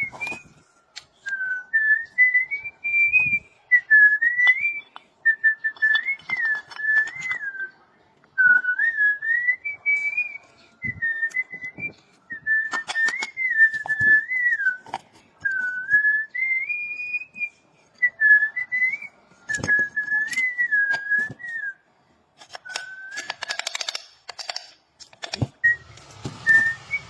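A person whistling a tune, a single wavering melody in short phrases with brief pauses. Scattered light clicks and knocks are heard alongside.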